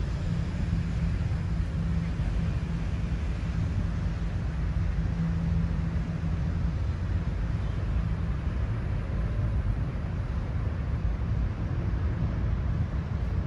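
Steady low outdoor rumble of wind on the microphone and distant city traffic, with a low hum that fades out about halfway through.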